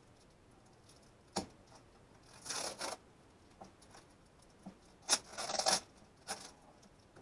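A thin wire being snipped with cutters: sharp clicks about a second in and twice near the end, with brief rubbing and rustling as the wire and its tape are handled.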